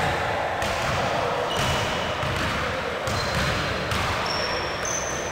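Basketball bouncing on a hardwood gym floor, with a few short high squeaks of sneakers.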